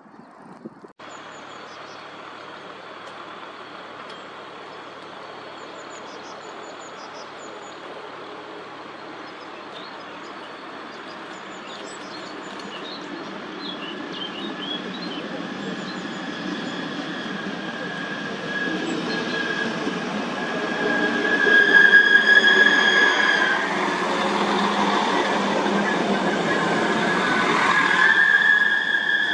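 Alstom Coradia LINT 54 diesel railcar approaching and pulling into the platform, growing steadily louder. A high steady squeal, typical of brakes or wheels, sounds as it slows and comes back as it stops.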